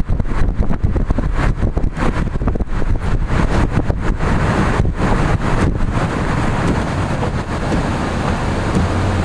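Steady car road noise, with the sound cutting in and out in quick dips for the first six seconds or so.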